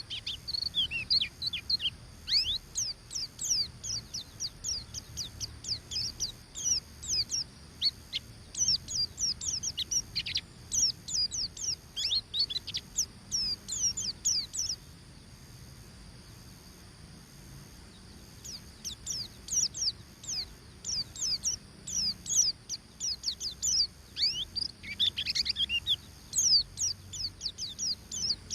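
White-eye (pleci) singing its fast 'ngeriwik' twitter: rapid runs of thin, high notes that each slide downward, falling silent for about four seconds midway before starting again. It is a lure song, used to provoke other white-eyes into singing.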